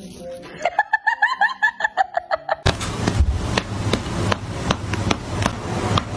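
A quick run of short clucking calls, about eight a second, lasting about two seconds. Loud dance music with a steady beat cuts in about two and a half seconds in and runs on.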